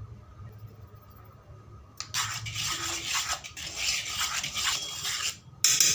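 A spoon stirring dry flour and chilli powder in a steel bowl: a gritty scraping and rubbing that starts about two seconds in, with a short, louder scrape just before the end.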